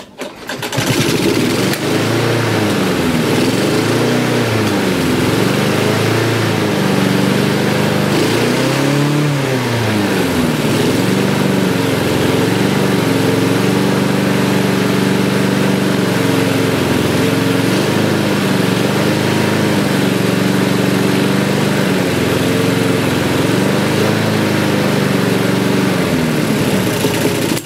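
Mountfield self-propelled petrol lawn mower engine started, catching about half a second in, then running with its speed rising and falling several times before settling, with a few brief dips later. The speed changes come from the throttle and drive cables being moved about, which makes these mowers run at different speeds.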